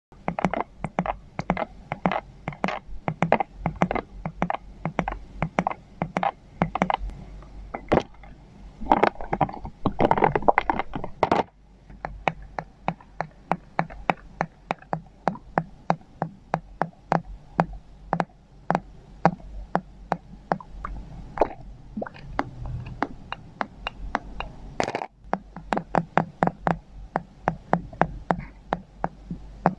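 Ampoule bottles being knocked and tapped in quick, irregular taps, several a second, with a busier, rougher stretch about a third of the way in.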